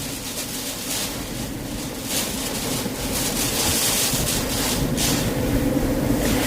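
Hurricane wind rushing and gusting against the microphone, swelling strongest in the middle, over a faint steady low hum.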